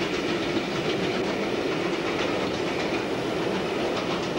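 A metre-gauge steam tank locomotive and its passenger train running, with a steady rumble and a regular rhythmic clatter.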